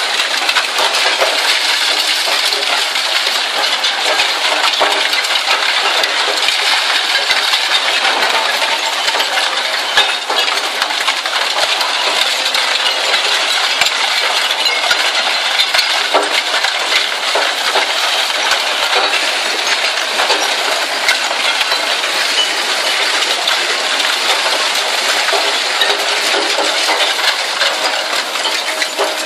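Zato Blue Devil twin-shaft shear shredder tearing up scrap steel: a steady, dense clatter and clinking of metal pieces.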